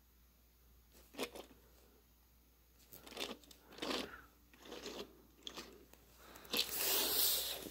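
Faint handling noises of a Matchbox die-cast toy truck being picked up and turned over on a wooden tabletop: a few short scrapes and clicks, then a longer, louder scraping rustle near the end.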